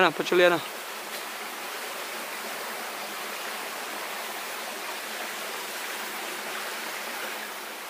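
Stream water running, a steady, even hiss that does not change.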